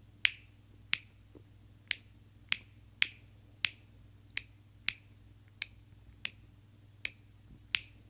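Small round rocker switch, wired inline on a power cord, clicked on and off over and over by a thumb: about a dozen sharp clicks, one every half-second to three-quarters of a second.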